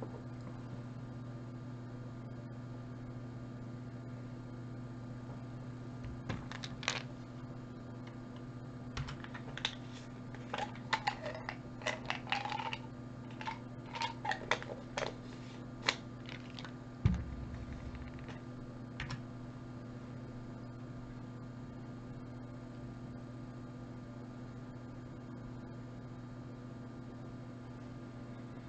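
Computer keyboard keys clicking in irregular clusters over a steady electrical hum, starting about six seconds in and stopping about nineteen seconds in, with one louder click near the end of the run.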